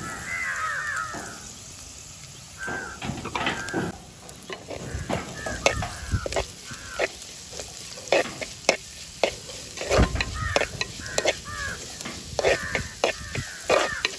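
A spoon scraping and stirring sliced onions, green chillies and crushed garlic frying with a light sizzle in a clay pot; the quick scraping strokes start a few seconds in. Crows caw in the background.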